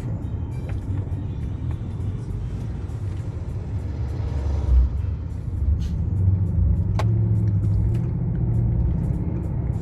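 Car driving, heard from inside the cabin: a steady low road-and-engine rumble, with a single thump about halfway through.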